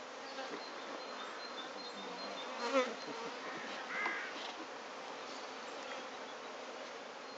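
Honeybees buzzing around an open beehive: a steady hum that runs throughout. A short warbling call, louder than the buzz, cuts in near three seconds in, with a weaker one about a second later.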